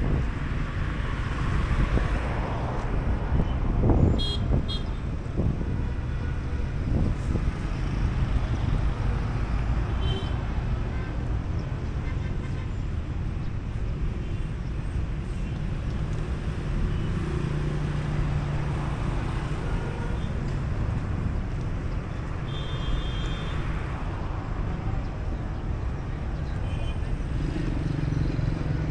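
Steady street traffic: vehicle engines and tyre noise, with a few brief high chirps.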